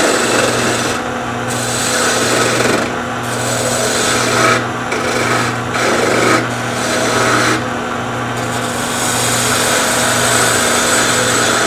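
Wood lathe running with a steady motor hum while a hand-held turning tool cuts into the spinning wooden handle, a loud hissing scrape. The cut breaks off briefly about six times as the tool is eased off and brought back in.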